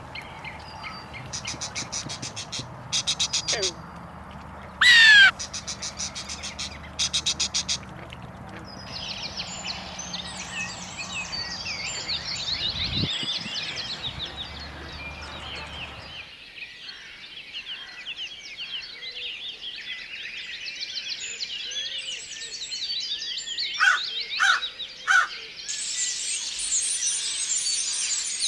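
Wild birds calling: a few rapid rattling calls and one loud falling whistle early on, then a dense chorus of many high, short chirps. A low background rumble drops away about halfway through.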